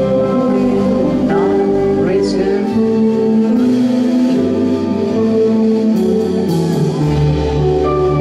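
Live rock band playing a song: electric guitar and bass guitar in held notes, with a shift in the bass line about seven seconds in.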